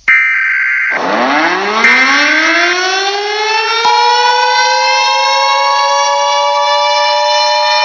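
Emergency Alert System header data bursts, then a civil defense siren winding up, its pitch rising steeply and levelling off. About four seconds in, the steady two-tone EAS attention signal joins the siren.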